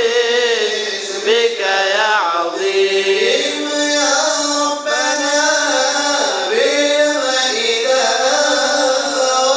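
A man singing a qasidah, an Arabic devotional hymn, into a microphone in a chanting style. The voice moves in long, winding, ornamented lines with no pauses.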